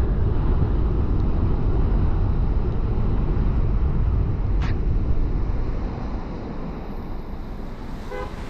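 Car driving on a wet city road: a steady low rumble of road and tyre noise that falls quieter about six seconds in. A brief, short horn toot sounds near the end.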